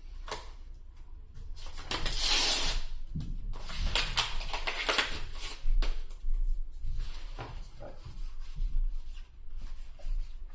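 Yu-Gi-Oh trading cards and their foil booster pack wrappers being handled: rustling and crinkling with scattered sharp card flicks, and a longer burst of crinkling about two seconds in.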